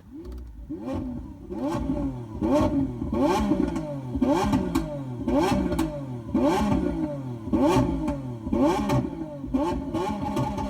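Recorded Lamborghini engine sound played through a Tesla Model 3's external Boombox speaker: a run of repeated revs, each rising and falling in pitch, a little more than one a second.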